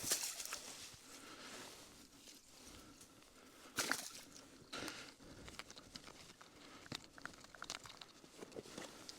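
Faint handling noises: rustling and crunching with scattered short clicks, louder at the start and again about four seconds in.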